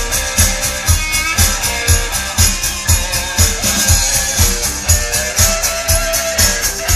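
Recorded music with a steady drum beat, about two beats a second, played back through Ultimate P1003 loudspeakers driven by a JVC A-X40 amplifier.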